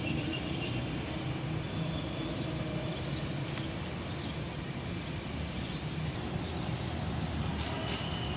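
Steady outdoor background rumble, with a few faint high chirps near the end.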